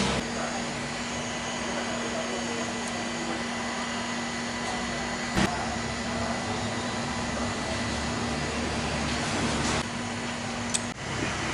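Small electric blower running steadily with an even rush of air and a constant hum. There is a single sharp click about five seconds in, and the hum stops near the end.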